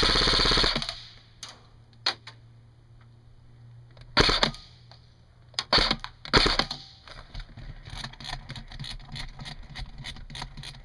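Airsoft guns firing: a loud full-auto burst of under a second at the start, then scattered single shots and short strings, and from about seven seconds on a quieter run of rapid shots, four or five a second.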